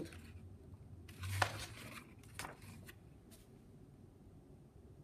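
A brief handling sound about a second and a half in, a soft rustle with a low thud, and a fainter click a second later, over faint small-room tone.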